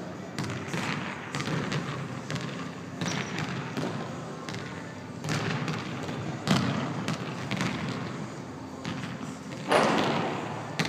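Basketball dribbled on a hardwood gym floor, irregular bounces echoing in a large gym. A louder hit comes near the end as a shot reaches the rim.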